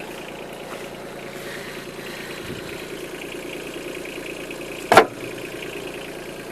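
Tractor engine idling steadily, with a single sharp knock about five seconds in.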